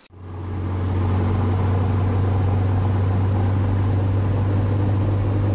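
Boat's outboard motor running at speed: a steady low hum with a rush of noise above it, swelling over the first second and then holding steady.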